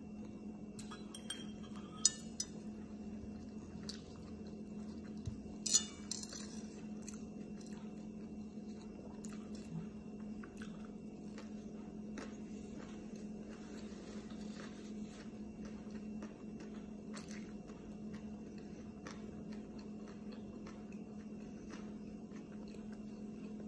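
Close-up eating sounds: chewing with faint mouth ticks, and a sharp clink of dishes about two seconds in and another about six seconds in. A steady low hum runs underneath.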